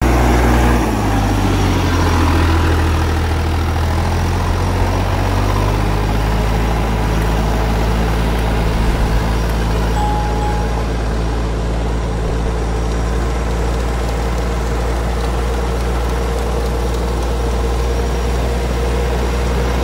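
Orchard tractor's diesel engine running steadily, heard up close from on the tractor; its note shifts about a second in.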